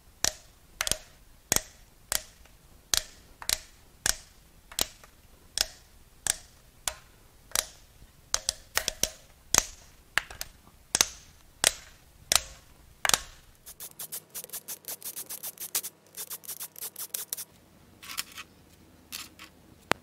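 Sharp metallic cracks about every two-thirds of a second as the camshaft cap bolts on a Mazda 2.3L MZR cylinder head are broken loose one after another with a ratchet wrench. About fourteen seconds in comes a fast run of ratchet clicking for a few seconds as the loosened bolts are spun out, then a few more single clicks.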